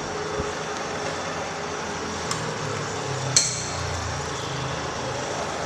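Milling machine running steadily while machining a long metal speargun rail, with two sharp metallic clinks about a second apart, the second louder.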